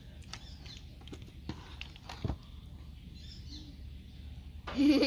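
A goat bleats once, loud and wavering, starting near the end, over a low steady hum with a few faint clicks and taps before it.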